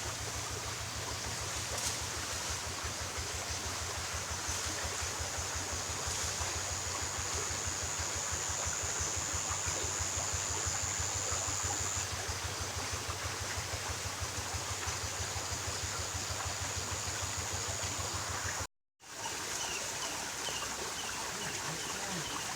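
Steady rush of a flowing stream. Under it a fast, regular low throb runs until a cut just before the last few seconds, and a thin high steady tone sounds for several seconds near the middle.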